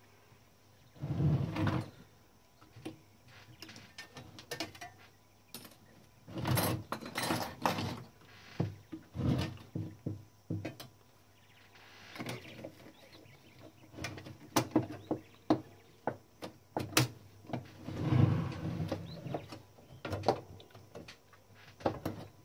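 Clicks, knocks and short scrapes of metal typewriter parts and tools being handled as a Klein Adler 2 typewriter's case is fitted back together. The sounds come at irregular moments, with a few louder clattering spells between quieter gaps.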